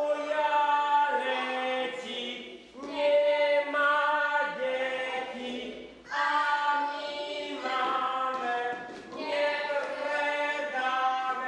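A group of voices singing a folk song a cappella, holding long notes together in about four phrases.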